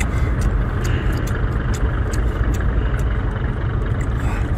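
Steady low rumble of wind buffeting the microphone, with many small sharp clicks of chewing and mouth noises as the meat of a large sea snail is eaten.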